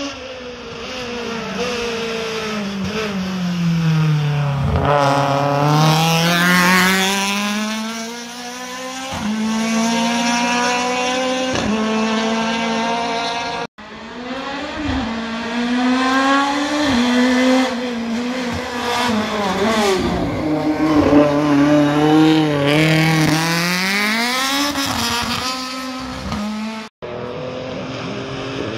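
Race car engines at full effort on two separate passes. Each time the engine note drops as the car slows, then climbs again in steps through several upshifts as it accelerates away. The sound cuts off abruptly twice where clips are joined.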